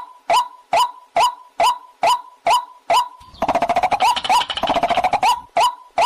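White-breasted waterhen calling: a short, clipped note repeated steadily about twice a second, broken for about two seconds in the middle by a rapid, harsh rattling run before the repeated notes resume.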